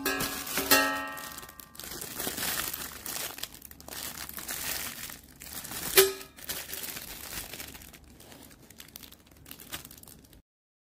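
Plastic wrapping crinkling and tearing as it is peeled off a stainless steel mesh fry basket, with a sharp metal clink about six seconds in. The sound cuts off shortly before the end.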